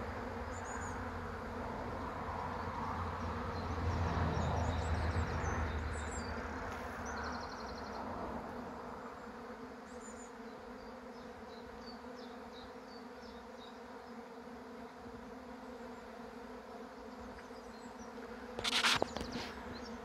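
Swarming honeybees in flight: a dense, steady buzzing hum of many bees, loudest at first and then fading as the swarm thins out. Near the end there is one brief loud noise.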